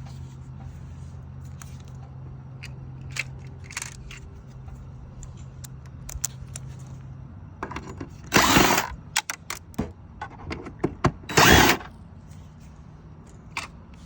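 A cordless power screwdriver runs in two short bursts about three seconds apart, driving Phillips screws on refrigerator dispenser trim, with small plastic clicks and handling noise around them. A low steady hum runs through the first half.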